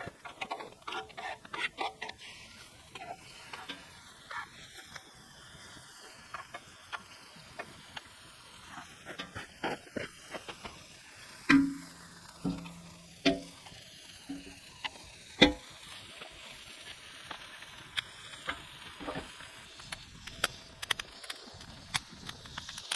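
Food sizzling on a griddle, with scattered clicks and a few louder knocks of a utensil against the cooking surface, the loudest about halfway through and again a few seconds later.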